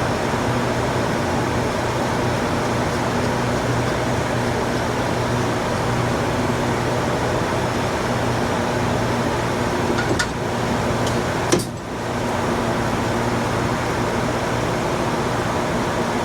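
Steady whooshing hum of a fan-like machine running without change, with a few faint clicks about ten seconds in and a single sharp tap a moment later.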